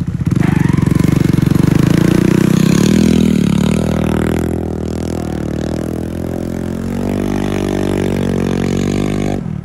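Small engine of a stand-up tracked snow scooter running hard and revving as it ploughs through deep snow. Its pitch wavers about three seconds in, then runs lower and steadier before dropping off sharply near the end.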